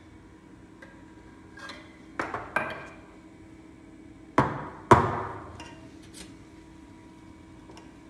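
Stainless steel milk pitcher of steamed milk knocked against the counter. There are a few sharp knocks about two to three seconds in, then the two loudest about four and a half and five seconds in, each ringing briefly.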